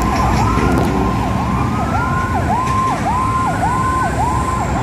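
An electronic vehicle siren sounding a fast repeating yelp, its pitch dipping and springing back about twice a second, over steady road traffic.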